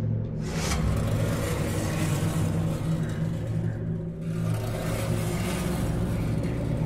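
Low, steady droning background music.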